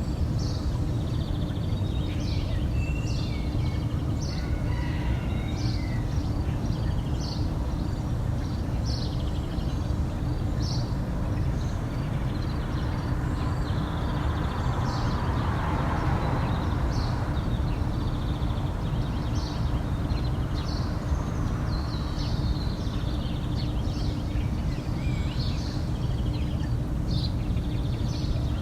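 Small birds chirping and twittering throughout, with a distant rooster crowing once around the middle. Underneath runs a steady low background rumble.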